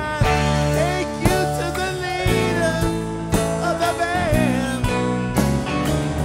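Live rock band playing an instrumental stretch, taken straight from the mixing desk: electric guitars, bass, organ and piano, and drums, with a lead line bending up and down in pitch over the band.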